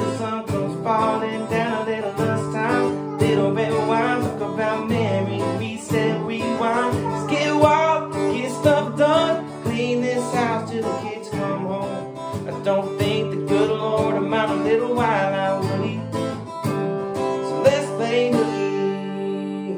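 A man singing to his own strummed guitar in a small bathroom. Near the end the voice stops and the last chord rings on.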